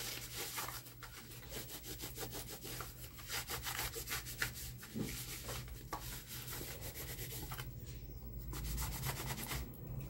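Quick, repeated rubbing strokes of dust being wiped off a Mallory electric fan's motor cover.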